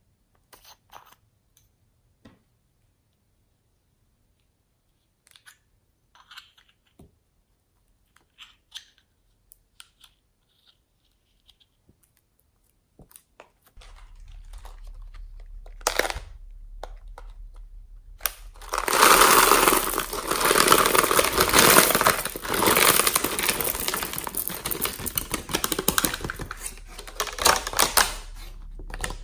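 Scattered small clicks of plastic containers being handled, then, over half-way through, a dense loud clatter of many small plastic beads rattling out of a plastic container and pouring onto the slime for about ten seconds.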